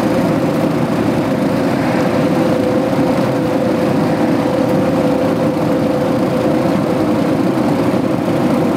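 A steady mechanical drone with a constant hum held at one pitch.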